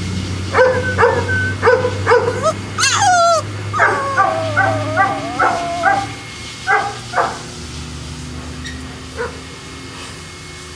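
Boston terrier barking and yipping in a quick run of short, high calls, with one drawn-out falling whine about three seconds in; the barking dies away after about seven seconds, over a low steady hum.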